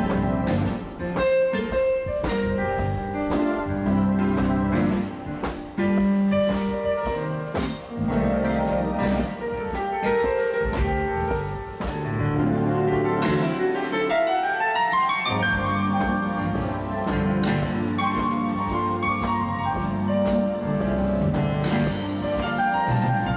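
A live band playing an instrumental groove, with keyboards and a drum kit keeping a steady beat. About 13 seconds in, a rising glide sweeps upward over the band.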